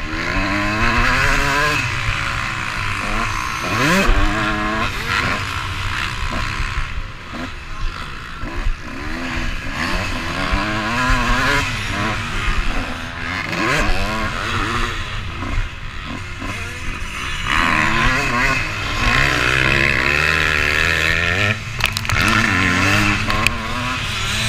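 Motocross dirt bike engine revving up and down as the rider accelerates, shifts and backs off around the track, heard from a helmet-mounted camera.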